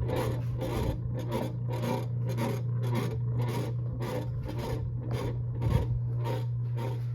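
52-inch Evergo hugger ceiling fan running noisily: a steady motor hum under a rhythmic rasping scrape that repeats about two to three times a second. The racket is why the fan was given away as too loud.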